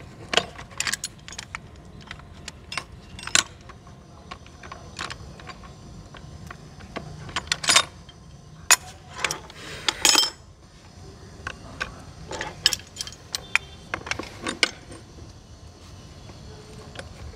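Pipe wrenches clinking and clanking against each other and the metal ball valve as they are repositioned and gripped to tighten the 40 mm valve onto a threaded pipe socket. Irregular sharp metallic clinks, with a cluster of louder ones about halfway through.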